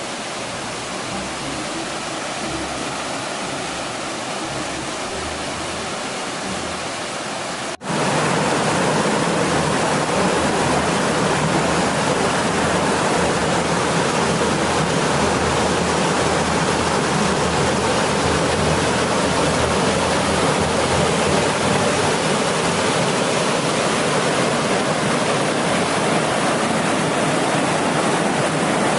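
Waterfall rushing, a steady roar of falling water. About eight seconds in it breaks off for an instant and comes back louder.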